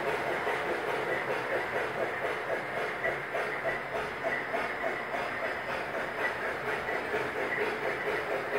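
S-gauge American Flyer Polar Express model steam locomotive's onboard sound system chuffing steadily as the train runs, with the hiss and clickety-clack of the model train rolling along the track.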